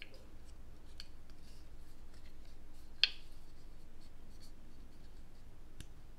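Light clicks and small plastic handling noises from a Manfrotto Pixi mini tripod being turned in the hands, its ball head and folded legs being worked, with one sharper click about three seconds in.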